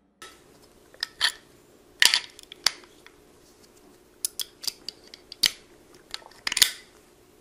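Irregular sharp metallic clicks and snaps from a Harrington & Richardson American Double Action five-shot .38 S&W revolver whose action is being worked by hand, about a dozen of them, with the loudest around two seconds in and near the end.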